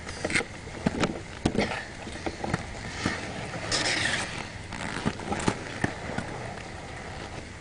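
Inline skate wheels rolling on concrete, with scattered sharp clacks and knocks from the skates, and a short louder rasp about four seconds in.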